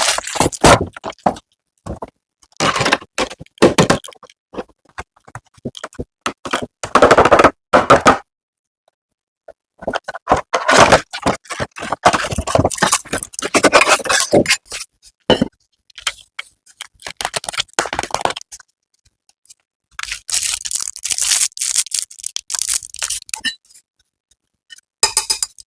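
Packaging and products being handled and opened by hand: bursts of crinkling, scraping and cracking, broken by short silent gaps.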